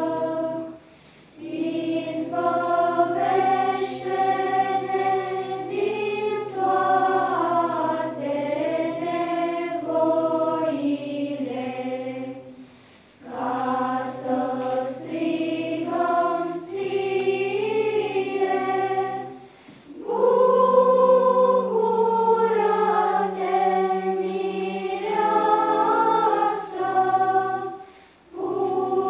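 Children's choir singing in several parts over a low held note, in long phrases with short breaks about a second in, at about 13 and 19 seconds, and near the end.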